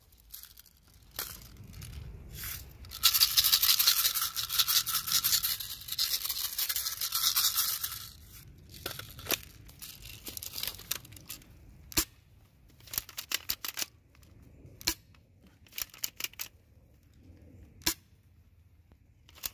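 Dry leaves rustling loudly close to the microphone for about five seconds, then scattered sharp clicks and snaps.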